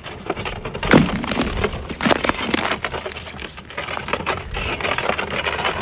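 Frozen lake ice cracking: a run of sharp cracks and crackles, with a loud crack about a second in followed by a falling zinging tone, and another loud crack about a second later. A low rumble of wind on the microphone runs underneath.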